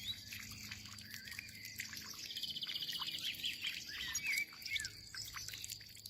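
European goldfinch twittering, with short chirps and a fast trill about two seconds in, over scattered small drips and splashes of water.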